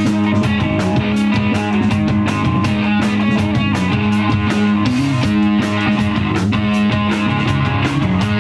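Live instrumental rock from a trio: electric guitar and electric bass playing over a drum kit that keeps a steady beat with regular cymbal hits.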